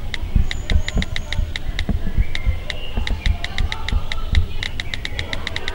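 Rapid, even clicking, about six clicks a second with a ringing edge to each, over irregular low thumps.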